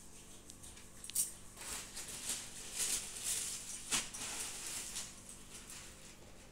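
Thin plastic bag crinkling and rustling as it is picked up and handled. There is a sharp crackle about a second in and another near four seconds.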